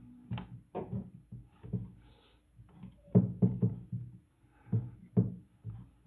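Handling noise as hands knock and rub against a camera-mounted compact microphone and its plastic shock mount while a furry windscreen is pushed on: a series of irregular soft knocks and thumps, several a second at times, with no steady sound under them.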